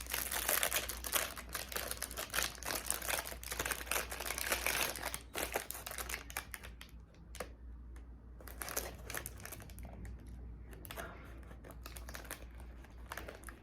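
Close, crisp crinkling and crunching as a fried egg roll and its takeout paper are handled and the egg roll is bitten into, its hard fried top cracking. The crackle is dense for about five seconds, then turns sparser.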